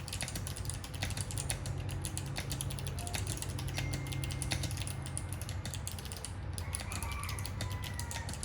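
Fast typing on a custom mechanical keyboard with unlubricated Kailh Box White clicky switches in an acrylic case: a rapid, irregular stream of sharp clicks.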